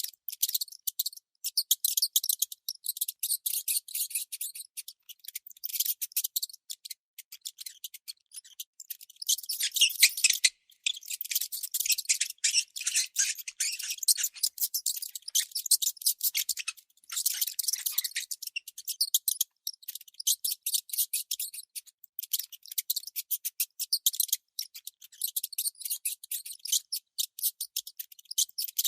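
Baby mice squeaking: rapid, high-pitched chirps in quick runs broken by short pauses.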